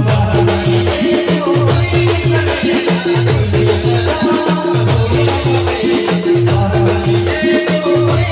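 Live band music from a Roland XPS-10 keyboard and electronic drum pads: a fast, repeating beat of low drum tones that fall in pitch, over a pulsing higher note and regular shaker-like ticks.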